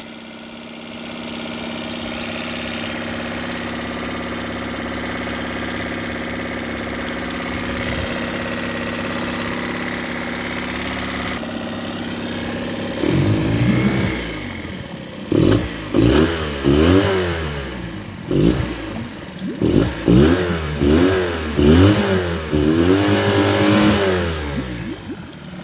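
A Mariner 9.9 hp four-stroke two-cylinder outboard idles steadily while warming up after its first start. From about halfway it is revved by hand at the carburettor throttle linkage in a series of quick blips, each rising and falling in pitch, and the water in the test barrel churns.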